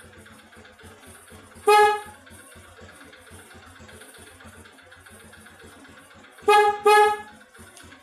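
Newly fitted single Hella electric horn on a Honda Supra X 125 motorcycle sounding as it is tested. There is one blast about two seconds in, then two short toots in quick succession near the end. It is fairly loud.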